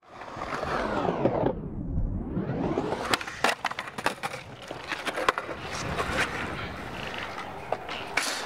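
Skateboard wheels rolling on smooth concrete, the rolling noise sweeping down and back up in pitch. About three seconds in come a series of sharp clacks and scraping as the board pops and grinds on a concrete ledge, with further clacks near the end.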